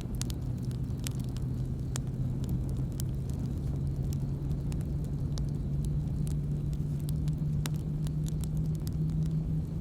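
Wood campfire burning: scattered sharp crackles and pops over a low, steady rumble, with a hum in it that slowly rises in pitch.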